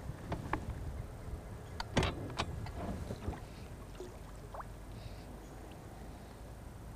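A few light knocks and clicks as a fly fisherman handles his rod and line and moves about in a small boat, the loudest two close together about two seconds in, over a low steady rumble.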